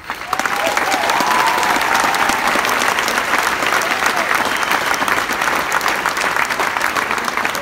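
Audience applauding. The applause breaks out suddenly and holds steady throughout.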